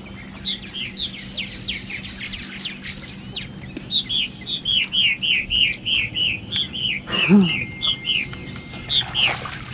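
A songbird singing a long run of short, quick falling notes, about three a second, with a single lower falling call about seven seconds in.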